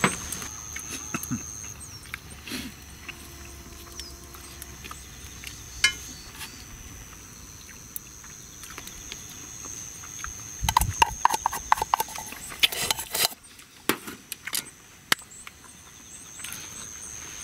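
Chopsticks scraping and tapping in a cast iron skillet while eating, with chewing; a quick run of clicks and knocks comes about ten to thirteen seconds in. A thin, steady high tone runs through much of it.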